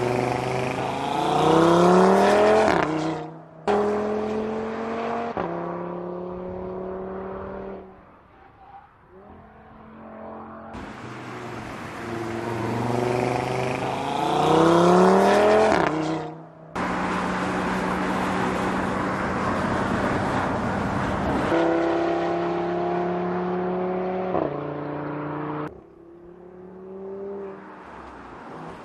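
2017 Audi RS 3 Sportback's 2.5 TFSI turbocharged five-cylinder engine accelerating hard twice, its note climbing and then stepping down to a lower steady tone at each upshift. It is quieter for a few seconds in between, and there are abrupt cuts between shots.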